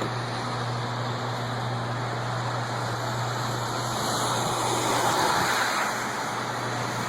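A loud, steady low buzzing drone over a rushing noise, growing a little louder about four to six seconds in, from an unexplained source that seems to come from the sky.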